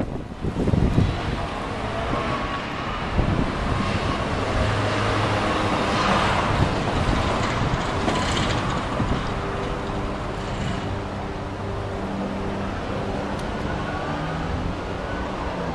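Street traffic: a steady rush of passing vehicles, swelling as one goes by around six seconds in, with a faint low engine hum underneath.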